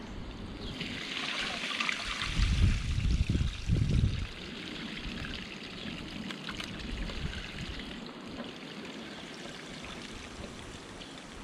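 Muddy dam water pouring out of a tipped plastic tub onto the ground, draining it off a catch of live yabbies. The pour is heaviest over the first few seconds, with a few dull low rumbles, then runs on as a steadier trickle.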